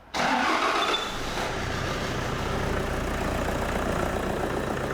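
Toyota Hilux 2.5 litre D4D diesel engine firing up almost at once. It is loud for about the first second, then settles into a steady idle. It is running on clean diesel fed through a temporary pipe straight to the engine, and it sounds good: no sign of clogged injectors.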